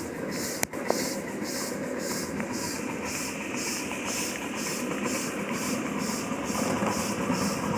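Live steam locomotive working along with its train, its exhaust chuffing about three times a second over the steady rumble of wheels on the rails, with a sharp click near the start.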